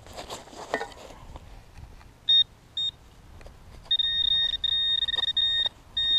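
Handheld Garrett pinpointer beeping as it is worked in a freshly dug hole, sounding on metal in the soil. Two short high beeps come about two seconds in, then from about four seconds in a steady high beep, held with brief breaks. Soft scraping of soil comes in the first second.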